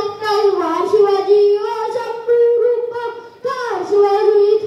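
A boy singing solo in long held notes that waver and slide in pitch, with a short break for breath about three and a half seconds in.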